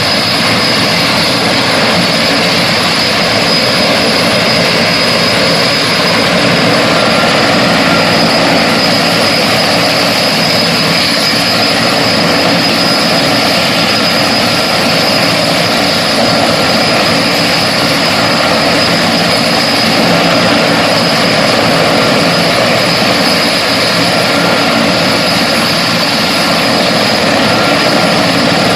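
Firefighting helicopter's turbine engines and rotor running steadily at a constant level, with a steady high turbine whine over the rotor noise.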